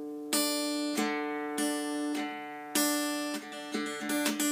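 Mountain dulcimer frailed clawhammer-style: the finger strikes down on the strings and the thumb plucks, and the open strings ring on between strokes. Strokes come a little over half a second apart at first, then quicker in the last second or so.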